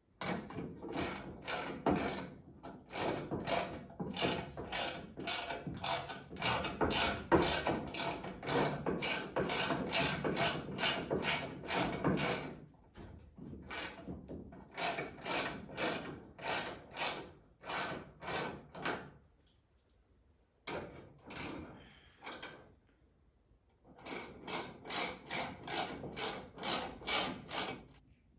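Hand ratchet wrench clicking as it turns fasteners, in runs of quick even strokes of about two to three a second, broken by a few short pauses.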